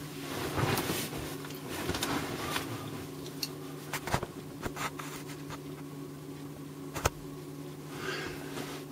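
Steady low electrical buzzing hum, with soft rustling in the first couple of seconds and two sharp clicks, about four and seven seconds in.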